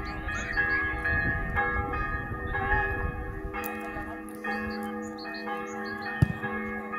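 Bells ringing: overlapping strikes whose tones keep sounding and change every second or so, with a single sharp thump about six seconds in.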